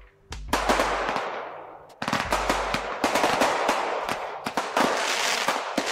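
NICO 'Ninja' 54-shot consumer fireworks battery firing: shots break into crackling chrysanthemums, giving a dense rattle of crackles from about half a second in. Another shot about two seconds in starts a second long run of crackling.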